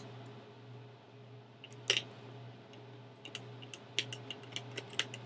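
Small clicks and taps from handling a camcorder viewfinder and a small Phillips screwdriver while fitting the viewfinder: one sharper click about two seconds in, then a quick run of light clicks near the end, over a steady low hum.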